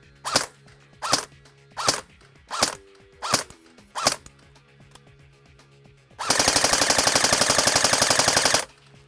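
Elite Force H&K MP5 A4 airsoft electric gun (AEG) with an all-metal Top Tech gearbox, fired six single shots about three-quarters of a second apart, then one full-auto burst lasting about two and a half seconds, starting about six seconds in.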